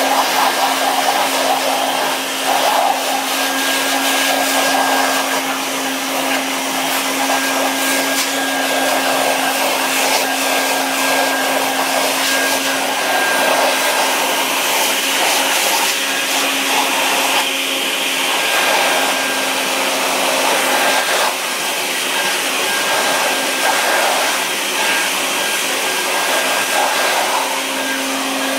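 Bucket Head wet/dry vac powerhead on a bucket running steadily, a motor hum with rushing air. The airflow wavers in strength as a Great Dane's mouth covers and uncovers the top of the unit.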